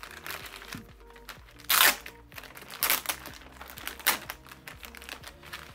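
Packaging of a TV's remote and accessory pack being torn open and crinkled, in several sudden rustling bursts, the loudest about two seconds in.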